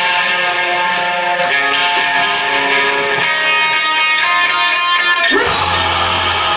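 Rock music led by electric guitar. About five seconds in, a rising sweep leads into a heavier section with more bass.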